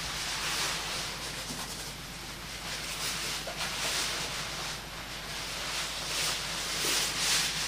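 Flames burning in a stove grate, a rushing hiss that swells and eases several times, loudest near the end, with a few faint crackles.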